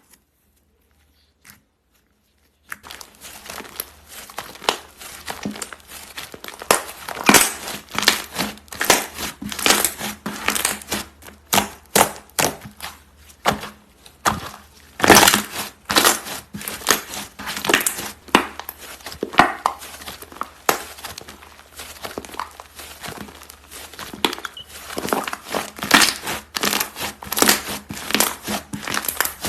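Slime being squeezed and worked by hand, giving a dense, irregular stream of crackles and sharp pops that starts about three seconds in.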